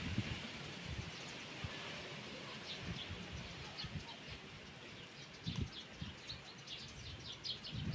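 Wind blowing through trees, easing over the first couple of seconds. From about two and a half seconds in, small birds chirp in short high notes. A few low gusts buffet the microphone, one near the middle and more near the end.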